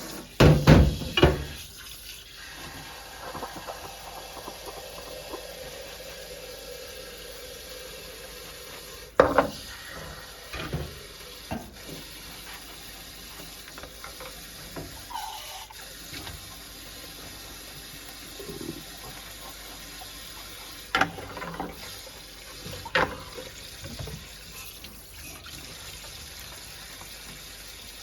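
Steady water noise, broken by several sharp knocks and clatters. The loudest come about a second in and about nine seconds in, with two more a little after twenty seconds.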